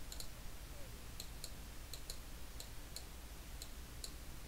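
Computer mouse clicking: about a dozen faint, irregular clicks while adjusting settings on screen, over a steady low hum.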